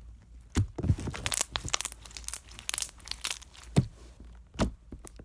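Sticky plain green slime being squished and pulled by hand: an irregular run of wet clicks, pops and crackles, thickest in the middle, with a few louder squelches.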